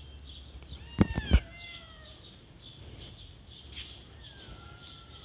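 Young kittens mewing, several thin, high, falling calls spread out, with two loud knocks about a second in.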